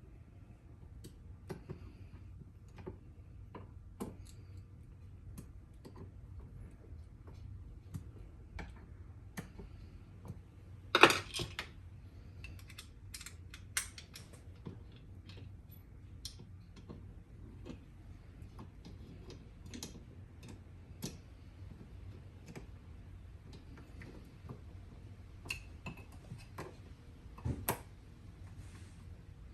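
Scattered light clicks and taps of hand-fastening work: an Allen wrench and small hardware on a plastic tool mount, with a sharp knock about eleven seconds in and another near the end.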